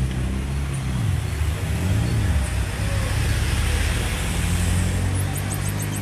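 Road traffic going by: a vehicle engine's low drone rising and falling in pitch, with road hiss swelling midway. Near the end, a quick run of five or six very high, short chirps.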